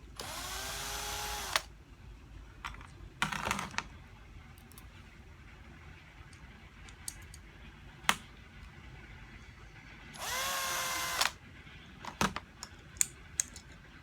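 Electric screwdriver running in two short spurts, each rising quickly in pitch and then holding a steady whine for about a second, as it drives in the reciprocating saw's housing screws. Small clicks and taps of handling the tool and parts come in between.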